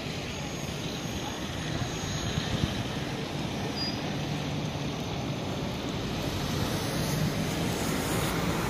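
Steady outdoor city background noise: a low rumble of distant traffic, growing slightly louder toward the end.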